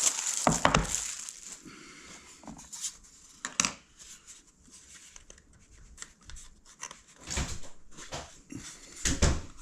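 Shipping package being cut and torn open by hand: tape and cardboard tearing and packing material rustling, with scattered handling knocks and a few louder bursts of rustling.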